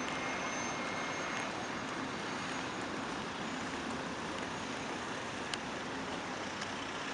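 Steady street traffic noise from cars driving past, with a faint thin high whine for the first second and a half.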